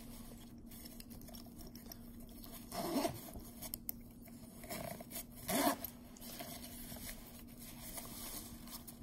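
Fabric medical pouch being opened by hand: its zipper and fabric handled quietly, with two louder zip pulls about three and five and a half seconds in.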